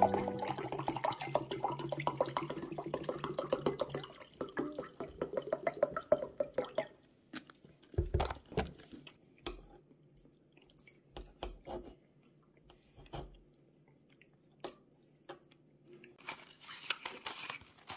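Wooden spoon stirring and scooping thick instant abalone rice porridge in a paper cup, making dense wet, sticky clicking for the first several seconds. After that come scattered taps and dull knocks of the spoon against the cup.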